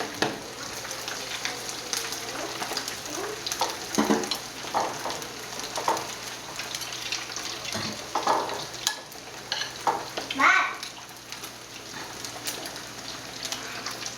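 Meatballs of ground beef frying in a pan of hot oil, a steady crackling sizzle. There are a few louder moments, about four, eight and ten seconds in.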